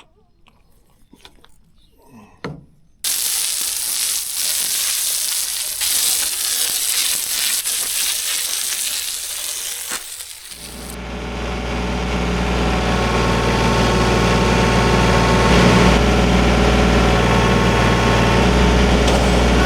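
A few light clicks, then a water spray suddenly starts hissing hard while a log is washed of gravel grit. After about seven seconds a small engine takes over and runs steadily with a low, even hum.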